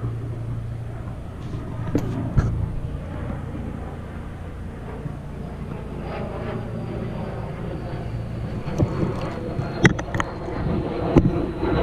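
Steady low hum of a distant motor, with a faint high tone that slowly falls in pitch over the second half. A few sharp clicks about two seconds in and again near the end.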